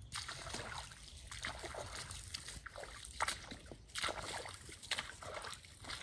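Footsteps in boots squelching and splashing through wet mud and shallow puddles, a series of uneven steps.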